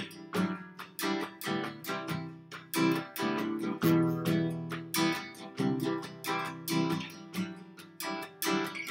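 Acoustic guitar strummed in a steady rhythm, several strokes a second, with the chords ringing on between strokes.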